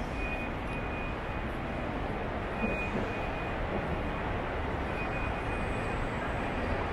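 Steady background rumble of a large airport terminal hall, with a faint high steady tone that comes and goes.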